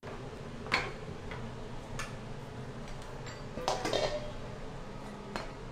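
A few sharp, irregularly spaced clinks and knocks of kitchenware over a steady low background hum.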